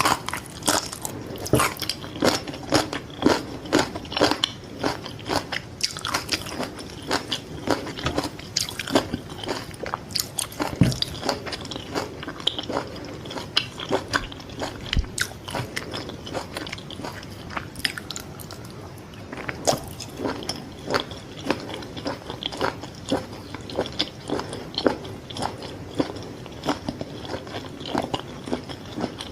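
Close-miked biting and chewing of fried fish balls, with many irregular sharp crunches.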